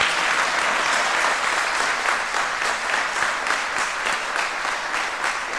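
Audience applauding: dense, steady clapping from a roomful of people that eases slightly toward the end.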